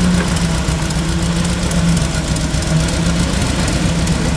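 Petrol engine of a ride-on miniature train locomotive running steadily with a constant low hum.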